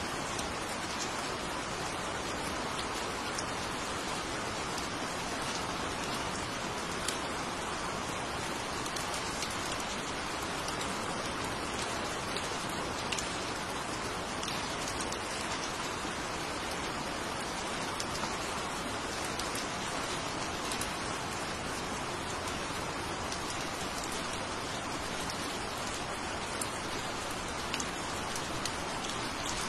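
Steady rain falling on forest foliage, an even hiss with scattered sharper drop ticks.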